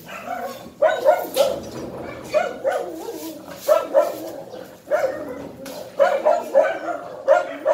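Siberian husky barking in short, high yips, a dozen or so in all, often two in quick succession.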